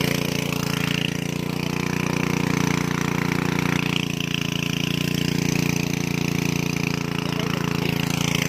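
Engine of a water pump draining the pond, running steadily at a constant speed.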